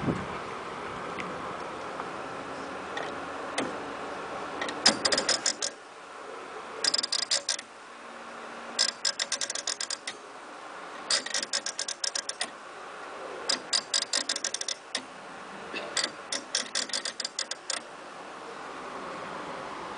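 Rapid metallic ratchet clicks from the Herschede Model 217 tubular hall clock's mechanism, in six bursts of about a second each, with a second or so between them.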